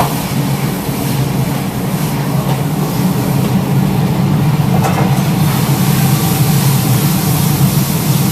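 Wok stove's burner roaring steadily at full flame under a fast stir-fry, with a faint clatter about five seconds in.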